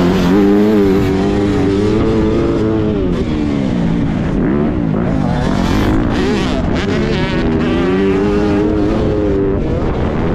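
Motocross dirt bike engine heard from on board while riding the track, its pitch rising and falling repeatedly as the throttle is opened and closed through the bumps and corners, over a rough rushing noise.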